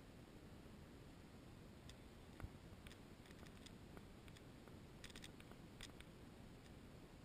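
Near silence: a faint steady hiss, with a few faint scattered clicks between about two and six seconds in.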